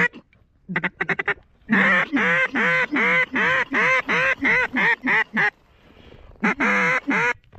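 Loud mallard-style duck quacking. A quick run of short quacks comes first, then a long, evenly paced series of about a dozen quacks, each falling in pitch, then four more near the end.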